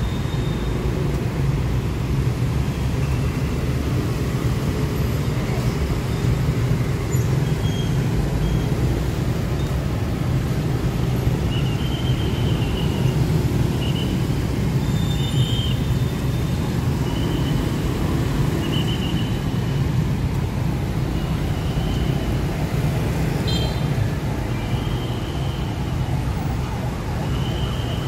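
Steady low rumble of ambient noise, with short, faint, high chirps now and then from about halfway through.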